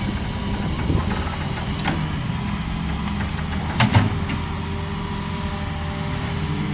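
Hitachi Zaxis 210F excavator's diesel engine running steadily, with a few sharp knocks, the loudest about four seconds in.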